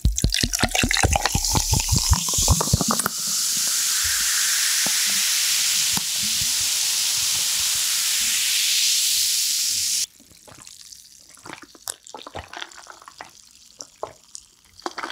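Sparkling water poured from a plastic bottle over ice into a glass, glugging with a pitch that rises as the glass fills. It is followed by a loud, steady fizzing hiss of carbonation that cuts off suddenly. Then come quieter small sounds of the drink being swallowed.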